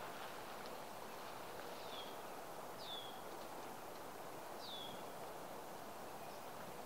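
A bird gives three short falling chirps over a steady background hiss of outdoor ambience.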